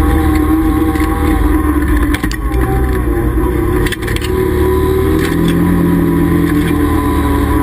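Can-Am Commander side-by-side's V-twin engine running under way, its pitch dipping about two seconds in and climbing again near the middle as the throttle changes, with a few short knocks from the vehicle.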